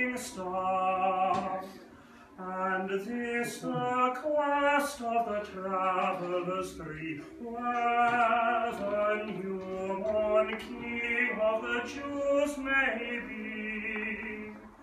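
A man singing solo and unaccompanied, in long held notes with vibrato; he pauses briefly about two seconds in.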